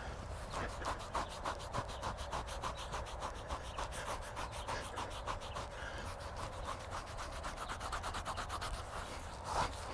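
Fingers scratching quickly and evenly over a draft horse's coat, about five or six strokes a second, with a brief louder noise near the end.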